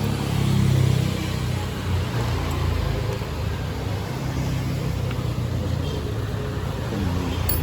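Steady low rumble of a motor vehicle engine running, a little louder about a second in.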